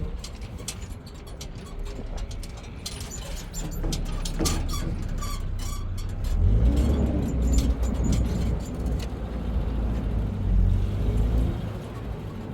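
A motor vehicle's engine running with a low rumble that gets louder about six seconds in, and a run of rattles and clicks between about three and nine seconds in.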